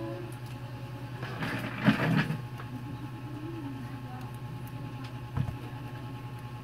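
A smartphone handled on a silicone repair mat: a knock about two seconds in and a light tap about five seconds in, over a steady low hum.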